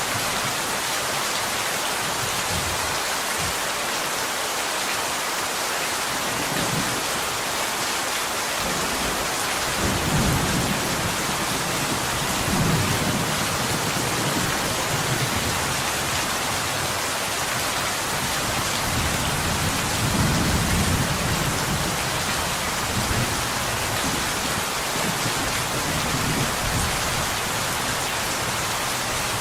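Steady rain falling on a window glass, an even hiss throughout. Low rumbles of thunder swell under it about ten seconds in and again around twenty seconds in.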